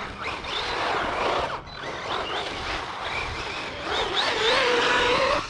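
Losi Lasernut electric RC truck driving: the motor whine rises and falls with the throttle over the rush of tyres on the ground, then holds steady near the end.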